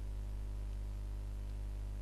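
Steady low electrical hum with a ladder of higher overtones, unchanging throughout, over faint hiss.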